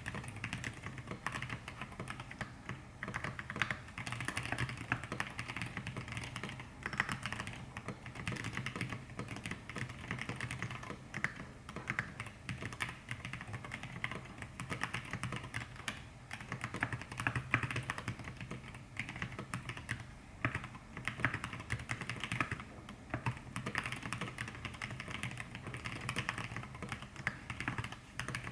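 Steady, fast typing on an Exclusive E6-V2 mechanical keyboard: Zealios 65g v2 tactile switches thick-lubed with GH V4 on an aluminium plate, under thick KAT Alpha PBT keycaps, with a spacebar dampened by cotton pads. The keystrokes come in a dense, unbroken stream.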